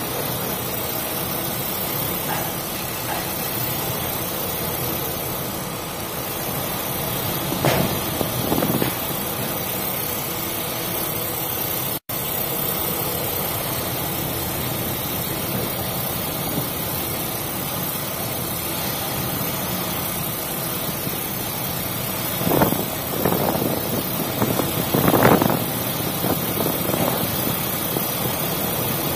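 A ship's engine running steadily under a constant rush of wind and sea noise, with a few short louder rushes, most of them near the end.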